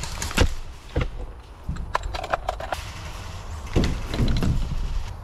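Airsoft field sounds: scattered sharp clicks and knocks, the first two about half a second apart, then a quick cluster, with a stretch of rustling and scraping about four seconds in.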